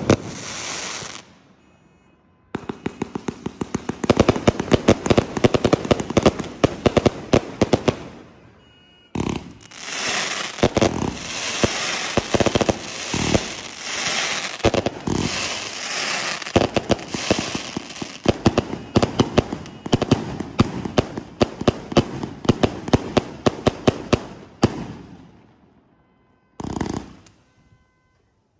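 A 341-shot consumer fireworks cake firing in rapid volleys: dense strings of launch pops and sharp reports with crackle. Short lulls come about two seconds in and about eight seconds in. The firing tapers off about 25 seconds in, followed by one last short burst near the end.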